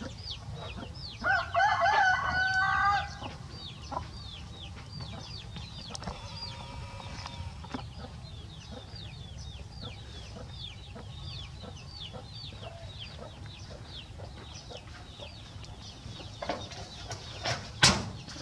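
A rooster crows once, loud, about a second in, and a fainter crow follows a few seconds later, over a steady run of short, high, falling peeps and clucking. Two sharp knocks near the end.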